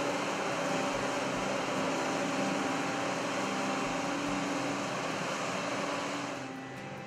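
1995 John Deere 9600 combine's six-cylinder diesel engine running steadily as the combine drives slowly away, a constant hum mixed with fan and air noise. The sound gets quieter about six seconds in.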